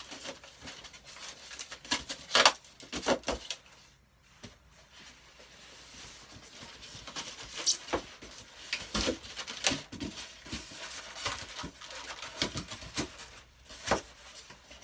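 Cardboard box being opened by hand: irregular scraping, rustling and knocks of cardboard and packaging, loudest about two and a half seconds in.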